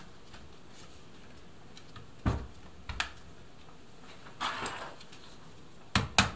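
Scattered knocks and clicks of airsoft rifle parts being handled, then near the end quick, sharp hammer taps begin, a small hammer tapping a binding part of the rifle into place.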